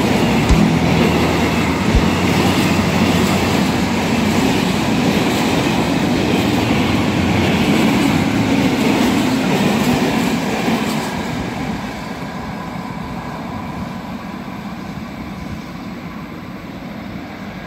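Freight train of open-top wagons rolling past close by, steel wheels running on the rails. The sound holds loud, then fades from about eleven seconds in as the last wagon passes and draws away.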